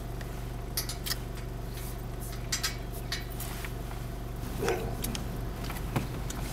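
Light clicks, taps and a rustle of small things being handled inside a car, over a steady low hum.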